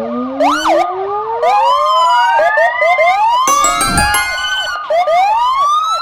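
Several police siren sounds layered together: slow rising wails overlapping one another over a fast repeating warble, with quicker glides at times. A short low falling tone comes in about three and a half seconds in.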